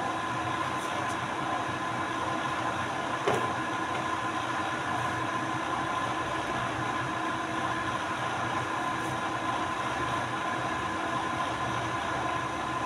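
Steady machine hum with a few constant tones from running print-shop machinery, and a single soft thump about three seconds in as a stack of paper is handled.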